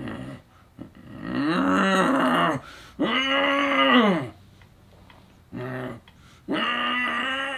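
A man's drawn-out zombie groans and moans without words: several long, pitched calls, each rising and then falling in pitch, with short pauses between them.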